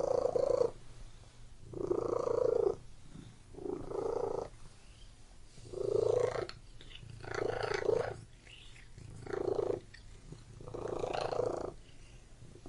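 Domestic cat purring close up. The purr swells and fades in a steady rhythm, about one swell every second and a half, with the cat's breathing.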